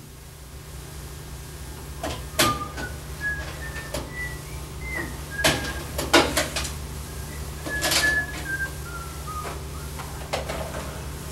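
A person whistling a tune in short notes, with sharp clicks and knocks from the tape deck's buttons and a tape cassette being handled. A steady low electrical hum runs underneath.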